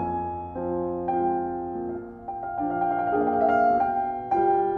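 Background piano music: a slow melody of held notes over changing chords.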